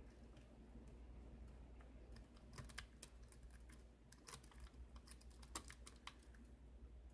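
Faint, irregular metallic clicks of lock-picking tools working the pins of a 5-pin Kwikset pin-tumbler lock, coming in a cluster about two and a half seconds in and stopping about a second before the end, over a low steady hum.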